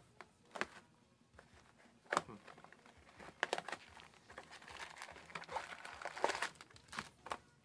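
Trading-card booster box being opened by hand: plastic wrapping and foil booster packs crinkling and rustling, with irregular sharp crackles and taps.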